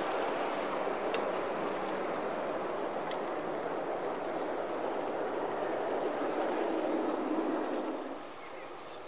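G-scale model freight train's boxcars rolling past close by on the track, a steady rolling rumble that drops away about eight seconds in.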